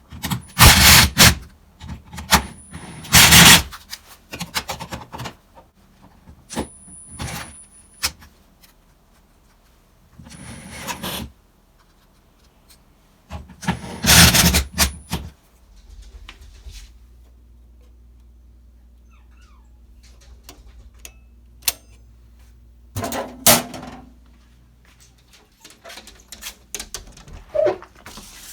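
Rummaging for screws: a run of irregular knocks, clatters and rustles, some with a thin metallic ring, and quiet gaps between. A low steady hum runs under the middle stretch.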